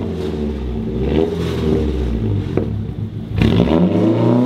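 Nissan 240SX's KA24 four-cylinder engine revved through a freshly fitted ISR cat-back exhaust with dual tips. The revs rise and fall in a few blips, with the sharpest rise about three and a half seconds in.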